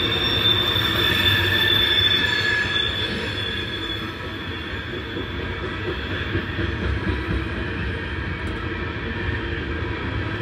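Norfolk Southern freight train cars rolling past with a steady low rumble, their wheels squealing on the rail in a high thin tone that fades out about four seconds in.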